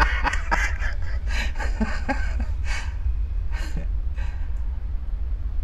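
A woman laughing in a run of breathy bursts and gasps that trail off about four and a half seconds in.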